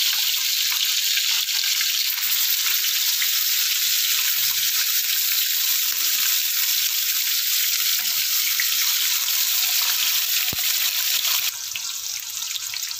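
Stuffed bitter gourds frying in hot ghee in a wok, a steady loud sizzle. The sizzle drops a little quieter near the end.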